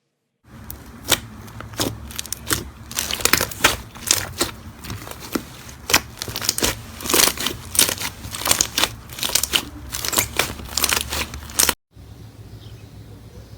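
Slime being squeezed and worked by hand: a dense run of sticky clicks and crackling pops. It cuts off abruptly near the end, and a quieter, steadier sound follows.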